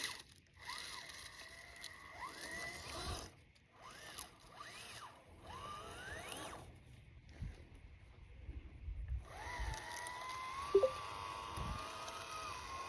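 Brushless electric motor of a 1/18-scale Red Cat Scout 2 RC crawler whining as it drives, its pitch rising and falling with the throttle, with a short pause about seven seconds in. It then holds a steadier, wavering whine.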